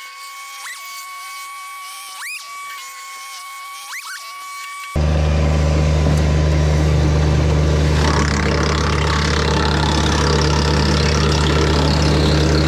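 Steady high tones with a few rising whistle-like sweeps, cut off abruptly about five seconds in by a Kubota BX compact tractor's three-cylinder diesel engine running loud and steady under a PTO wood chipper.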